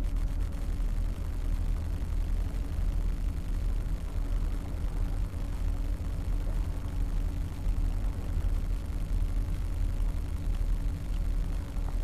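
Wind buffeting a small camera microphone: a steady, fluttering low rumble, with a faint steady hum underneath.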